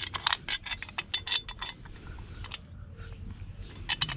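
Small metal parts clinking and rattling as a motorcycle chain cover and its bolts are handled and set in place: a quick run of sharp clicks for the first couple of seconds, then a few scattered ones and another cluster near the end.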